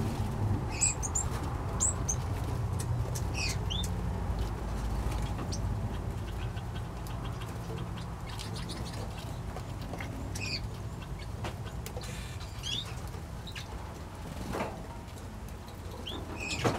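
Short, high chirps and calls from small aviary finches and parrots, scattered every second or two over a low steady rumble.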